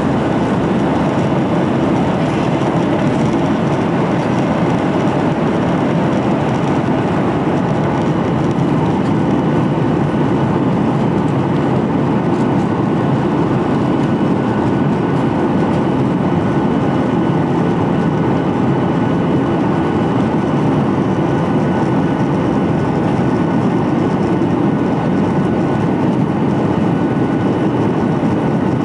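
Boeing 737-800 jet on the ground: a loud, steady rumble of CFM56 engines and rolling wheels, with faint steady engine tones above it.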